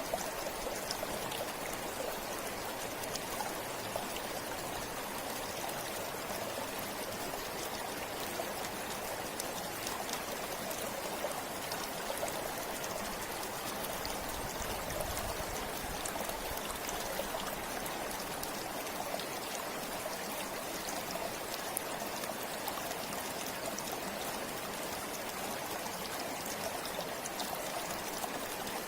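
Steady flow of a forest river or stream, a continuous rushing of water with small splashes and trickles.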